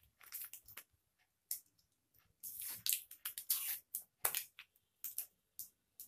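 Hands working two-part epoxy putty clay and its packing: irregular short rustles and crackles, thickest from about two and a half to four and a half seconds in.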